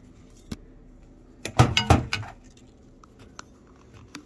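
Handling noise: a light click, then a short clatter of sharp knocks from hard objects about one and a half to two seconds in, followed by a few faint ticks.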